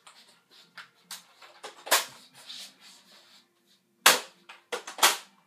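Nerf foam-dart blaster being handled and fired: a string of sharp plastic clacks and pops, loudest about two seconds in and twice near the end.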